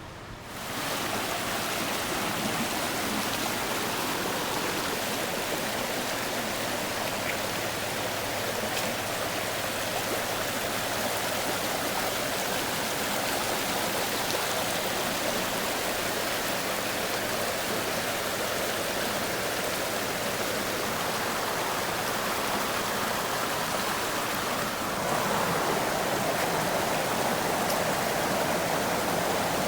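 A creek's flowing water, a steady rushing noise. It swells up in the first second and grows louder again about 25 seconds in.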